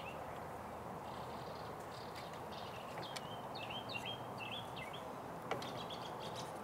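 Birds chirping in short warbling phrases over steady outdoor background noise, with a faint click about five and a half seconds in.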